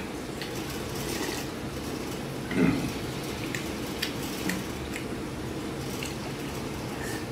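A person eating from a bowl of soup: slurping and chewing, with one louder mouth noise about two and a half seconds in and a few small clicks. A steady low hum runs underneath.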